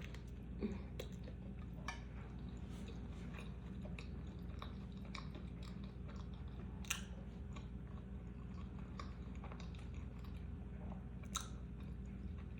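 A person chewing food close to the microphone: soft, wet mouth clicks and smacks, with two sharper clicks about seven and eleven seconds in, over a faint steady low hum.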